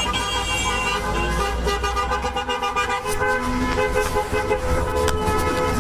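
Many car horns honking together at once, several pitches held and overlapping, over the low rumble of traffic: a celebratory honking convoy.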